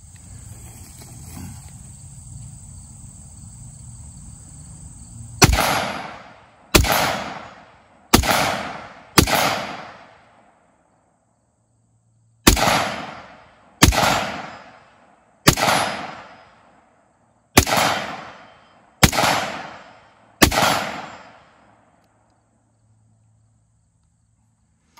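AR-15 rifle firing ten shots in two strings, four quick shots and then six, each with a short echo that dies away. A steady hiss comes before the first shot.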